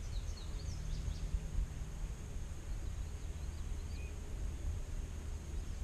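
Outdoor ambience: a steady low wind rumble on the microphone, with scattered short high bird chirps near the start and around the middle, over a thin steady high whine.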